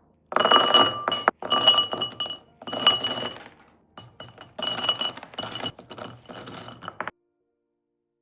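Glass clinking and ringing in about five stretches, then stopping abruptly about seven seconds in.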